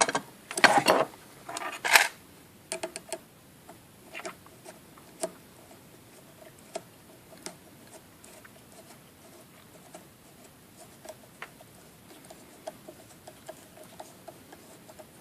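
Small metal parts being handled and fastened: a bolt and wing nut clinking against a bent sheet-metal axle clamp, with a burst of clatter in the first two seconds and then sparse light clicks as it is threaded and tightened.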